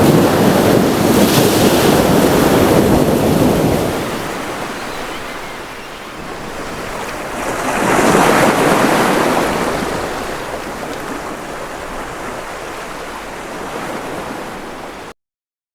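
Ocean waves washing in, in two surges: the first loudest over the first few seconds, the second about eight seconds in. The sound cuts off abruptly shortly before the end.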